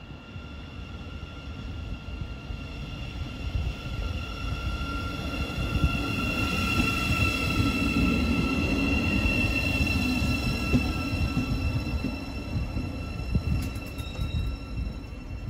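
Great Northern Class 717 electric multiple unit pulling into the platform and braking to a stop. A high electric whine sags slightly in pitch over the rumble of the wheels; the train is loudest as it passes mid-way and quieter as it slows near the end.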